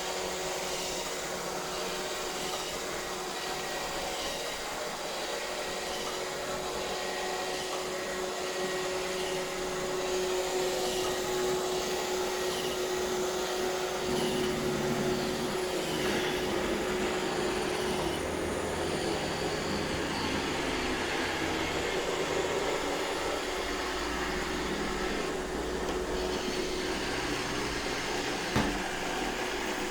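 iRobot Roomba 630 robot vacuum running, a steady whine over the hum of its motor and brushes. A lower rumble joins about halfway through, and there is one sharp knock near the end.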